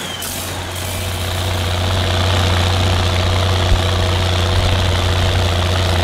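Ford TW-series tractor's diesel engine running steadily with a deep, even drone, growing louder over the first two seconds.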